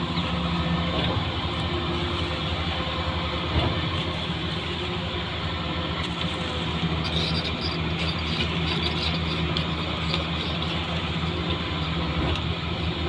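Construction vehicle's engine running steadily, with a single knock about three and a half seconds in and added rattling from about halfway through.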